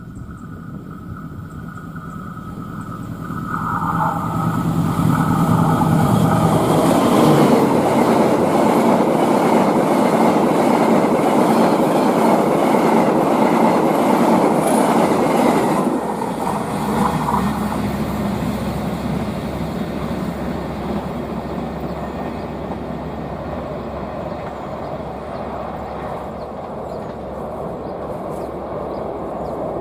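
Diesel-hauled passenger train approaching and passing at high speed: a hum grows louder, then a loud rush of the passing train, which drops sharply just past halfway and slowly fades as the train runs on.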